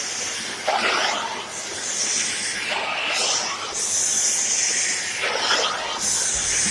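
Shark AZ910UK vacuum cleaner running on fabric: a steady, airy suction hiss whose tone shifts every second or two as the nozzle is worked over the material.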